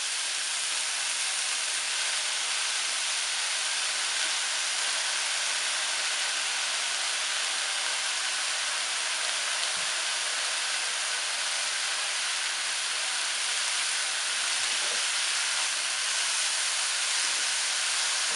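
Steady sizzling hiss of hot oil in a pan as a heap of fresh coriander leaves wilts on top of grated coconut and onions, with two faint soft knocks along the way.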